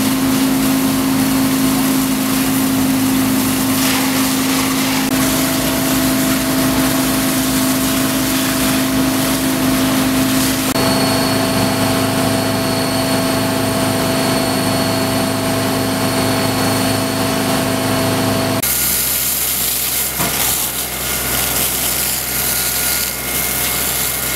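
Fire pump engine running steadily at constant speed, with the hiss of water jets from fire hoses; the mix of engine hum and spray shifts a few times.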